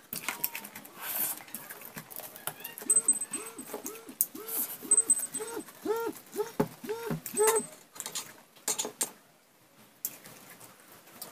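Small wet clicks and smacks of eating rice by hand, with a quick run of about a dozen short calls, each rising then falling in pitch, in the middle of the stretch.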